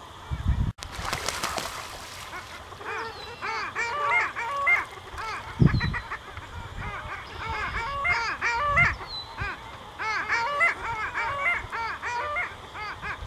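A group of long-tailed ducks calling: many short rising-and-falling yodelling calls overlapping, starting a few seconds in. These are the courtship calls of males chasing females. A brief rush of noise comes near the start, and a few low thumps, the loudest about halfway through.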